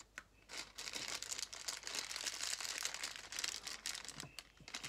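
A small clear plastic bag of foam beads crinkling as it is squeezed and shaken in the hands: a dense crackle that dies down near the end.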